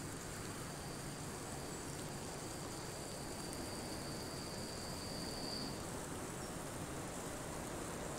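Steady hiss of wet outdoor trackside ambience, with a thin high whine that swells for about five seconds and then stops shortly before the six-second mark.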